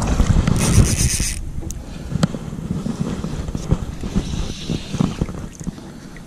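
Wind rumbling on the microphone while a hooked fish is played on a spinning rod, with a brief rapid rattle of the reel's drag giving line about half a second in, and scattered clicks and knocks of the reel and rod being handled.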